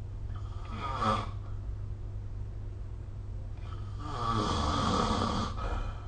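A sleeping person snoring: a short snore about half a second in, then a longer, louder snore lasting about two seconds, over a steady low hum.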